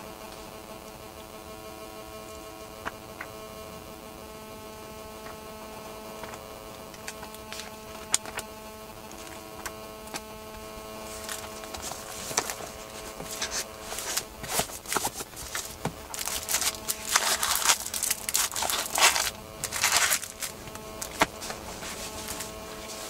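A steady faint hum with a few isolated ticks. From about eleven seconds in comes a busy run of rustling and clicking handling noises that grows louder and eases off near the end.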